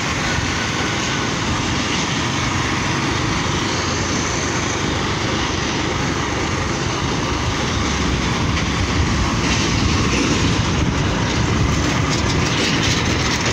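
Steady rush of wind buffeting the microphone, with road and engine noise from a motorbike moving at highway speed.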